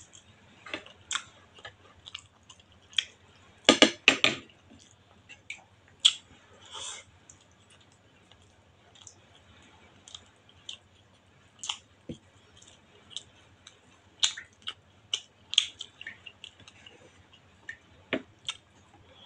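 Close-miked mouth sounds of a person eating rice and fish by hand: chewing with scattered wet clicks and lip smacks, and a louder cluster of clicks about four seconds in.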